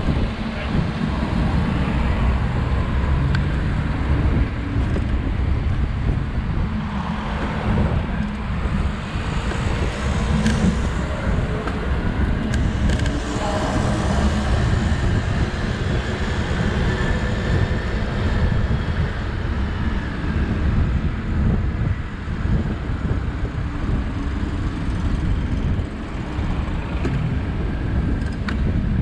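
Steady road traffic on a busy city street, with a heavy low rumble of wind buffeting the microphone.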